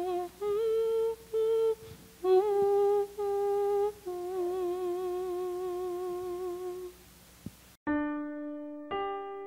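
A woman humming a slow, wordless melody: a few held notes, the last one long and wavering with vibrato. Near the end, piano chords start, two of them about a second apart.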